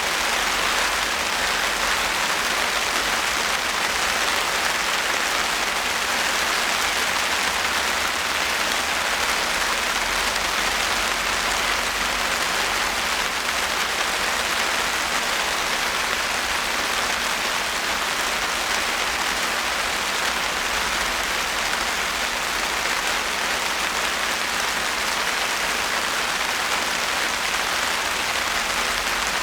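Steady rain falling on surfaces: an even, unbroken hiss of many drops that holds at one level throughout.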